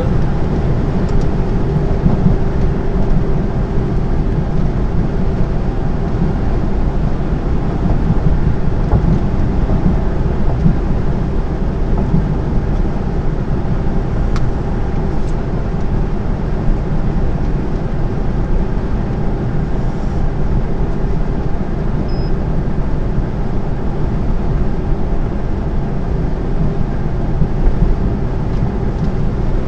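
Steady low rumble inside a truck cab at motorway speed: the drone of the diesel engine mixed with tyre and road noise.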